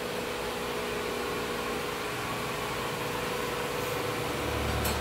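Wood-Mizer LT15 Wide portable sawmill running steadily with its blade out of the log, a constant mechanical hum; a deeper drone joins it near the end.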